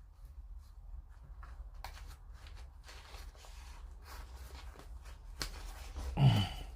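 Faint clicks and rustles of tweezers and small kit parts being handled at a work table, over a steady low hum. A short vocal sound, a breath or murmur, comes near the end.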